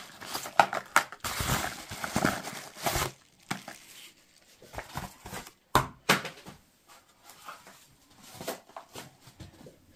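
Parcel packaging being handled and opened by hand: irregular rustling, crinkling and scraping, busy for the first few seconds and sparser after, with a sharp click near six seconds.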